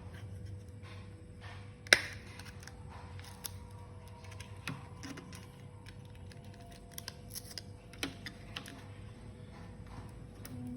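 Irregular light clicks and taps of small hard laptop parts being handled during hardware work, with one sharper click about two seconds in and a run of small clicks later on.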